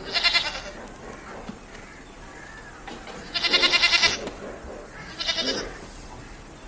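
Male blackbuck calling three times, each call a fast pulsing bleat. The second call, about three and a half seconds in, is the longest and loudest.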